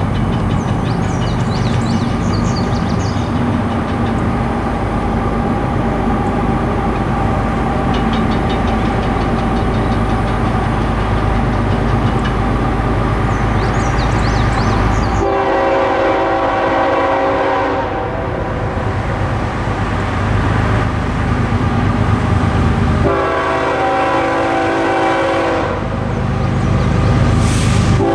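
Diesel engines of approaching GE ES44C4 freight locomotives rumbling steadily. About halfway through, the locomotive horn starts sounding a multi-note chord in long blasts, the usual grade-crossing warning, with a pause and a fresh blast near the end.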